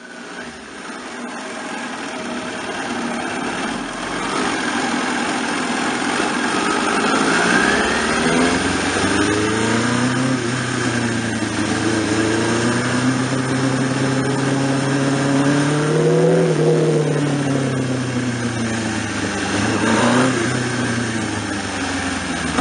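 Sport motorcycle engine heard from a camera mounted on the bike, pulling away and running at low speed; its pitch climbs slowly to a peak about two-thirds of the way through, then eases off.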